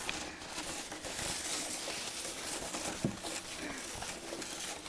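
Plastic sled sliding fast over packed, groomed snow: a steady scraping hiss, with one sharp knock about three seconds in.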